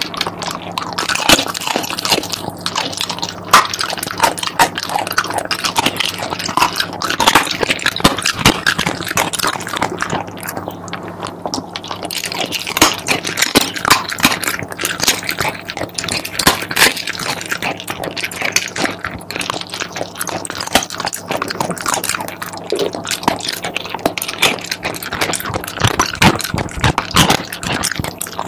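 Shiba Inu chewing a chicken foot: a continuous run of crunches and clicks as its teeth work through the bone and cartilage.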